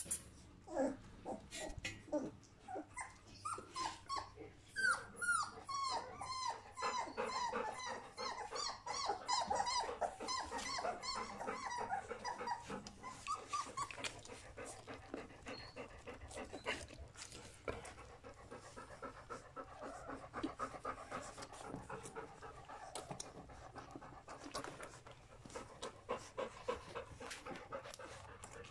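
Three-week-old puppies whining and squealing in a rapid string of short, high calls. About halfway through, the calls give way to softer, continuous squeaking and grunting as the litter nurses from the mother dog, with some panting.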